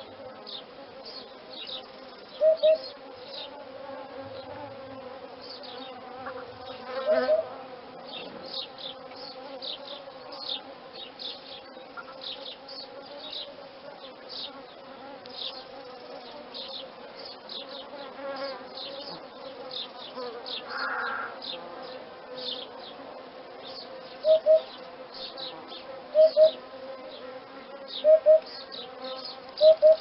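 Hoopoe calling in short, low double hoots, one pair near the start, one a few seconds later, then four more pairs about two seconds apart near the end. Behind them runs a steady buzzing of insects with many faint high chirps.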